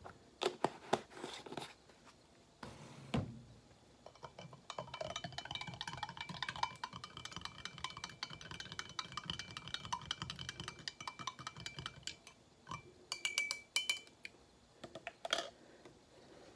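Metal teaspoon stirring coffee in a glass mug: a fast run of light clinks against the glass that lasts several seconds, with the glass ringing faintly. A few sharper clinks near the end.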